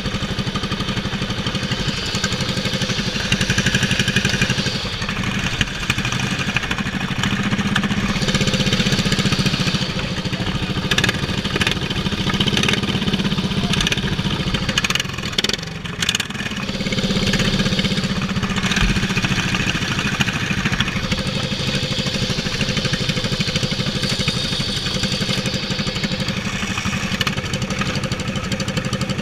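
Racing lawn mower engine, governed at 3650 rpm, running under the driver's throttle, its note swelling and easing several times, with a brief drop about halfway through before it picks up again.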